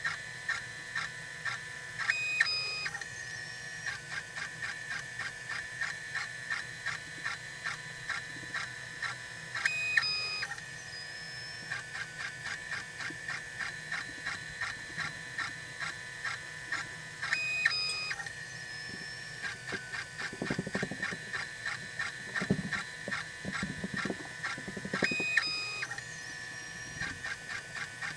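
Stepper motors of a LatheEngraver CNC rig running an automated probing scan: a steady high whine pulsing several times a second, broken about every seven to eight seconds by a brief higher-pitched move.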